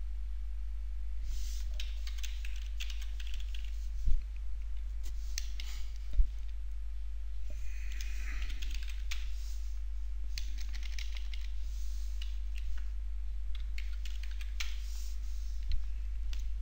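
Computer keyboard typing in short runs of keystrokes, with two thumps about four and six seconds in, over a steady low hum.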